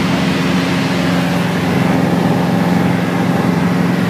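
A light propeller plane in cruise, heard from inside the cabin: a loud, steady engine and propeller drone with a constant low hum under a hiss of air noise.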